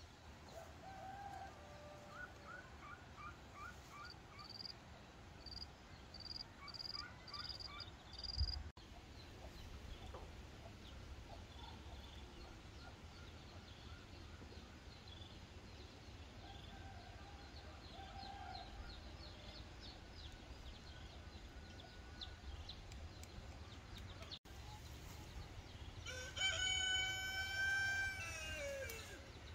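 Small birds chirping in short repeated notes over a low background rumble, with a brief thump about eight seconds in. Near the end a rooster crows once, a long call of about three seconds that falls in pitch at its close, the loudest sound in the stretch.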